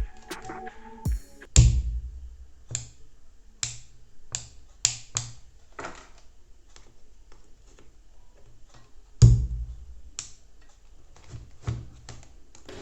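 Song playing through the repaired iBall home theater system, mostly sparse, irregular drum hits with heavy subwoofer bass, the strongest about one and a half seconds in and again about nine seconds in.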